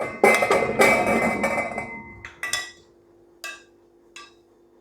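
Whole grapes tipped into a metal pot: a dense clatter of small impacts for about two seconds, with the pot ringing, followed by three single knocks about a second apart as the last grapes drop in.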